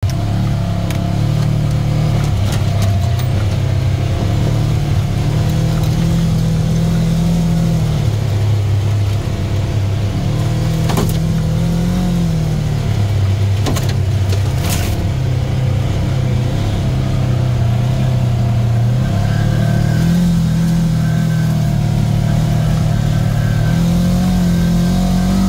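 Vehicle engine running while driving on a dirt road, heard from inside the cab, its note rising and falling several times with the throttle. A few sharp knocks from the cab in the middle.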